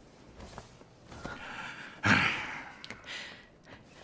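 A man's heavy sigh: a breathy exhale that starts sharply about two seconds in and fades, with fainter breaths before and after it.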